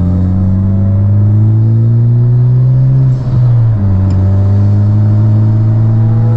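Honda Civic Type R's turbocharged four-cylinder heard from inside the cabin, accelerating with the engine note climbing steadily. About three seconds in there is a brief break for an upshift, then the note starts lower and climbs again.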